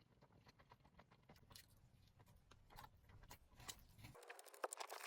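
Near silence with faint scattered soft clicks; a faint steady hiss comes in about four seconds in.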